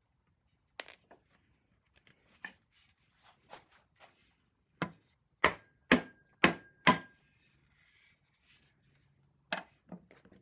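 Hardwood chair-rim parts knocked together as a wedged-nail tenon joint is tapped home. A few light taps come first, then four hard knocks about two a second in the middle, and two more near the end.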